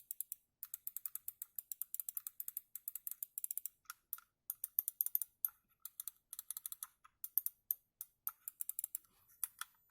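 Buttons of a Serioux Pastel 600 wireless mouse clicked rapidly over and over, in quick runs of several light, sharp clicks a second with short pauses between. The switches have had a DIY silencing mod, which the owner finds makes a difference, but not a huge one.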